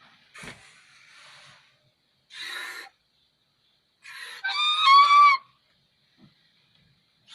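White swan calling: two short breathy calls, then a louder pitched honking call about four to five seconds in, and another short call starting at the very end.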